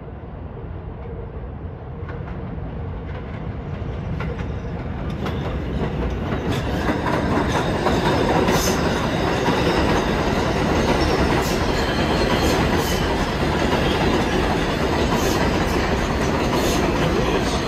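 R188 subway train on the 7 line approaching the station, its steel wheels clattering over the rails. It grows steadily louder over the first eight seconds or so, then stays loud with scattered sharp clicks.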